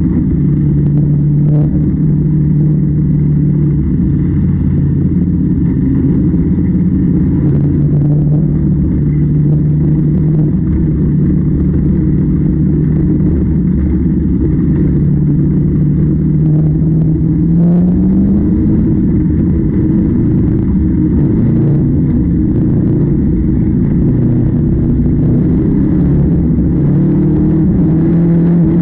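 Engine of harvest machinery running steadily under load, its pitch climbing about two-thirds of the way through.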